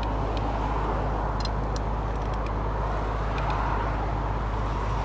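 Bucket truck's engine running steadily at idle below the raised bucket, a low even hum, with a few faint clicks about a second and a half in.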